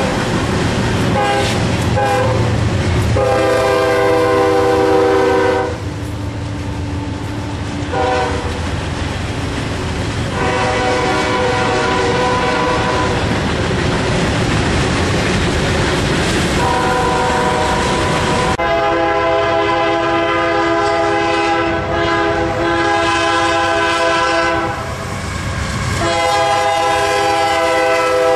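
Diesel freight locomotive air horns blowing a series of long blasts, over the rumble and clatter of freight cars rolling past on the rails. The horn's pitch changes about two-thirds of the way through.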